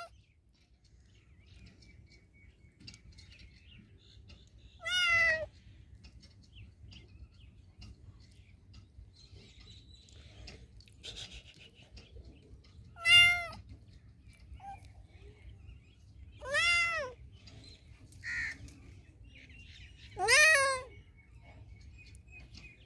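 Tabby kitten meowing: four loud, high calls a few seconds apart, each about half a second long and rising then falling in pitch, with a shorter, weaker cry between the last two.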